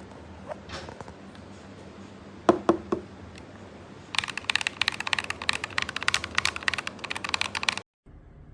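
Mechanical keyboard fitted with Akko V3 Lavender Purple Pro tactile switches being typed on. A few separate keystrokes come first, then about four seconds of fast typing that cuts off suddenly.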